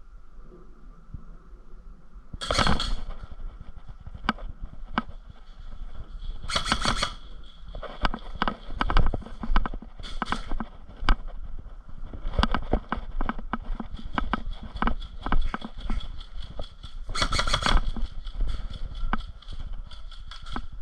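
Irregular clicks and rustling, thickening into quick runs in the second half, with three short loud noisy bursts: about two and a half seconds in, around seven seconds and around seventeen seconds.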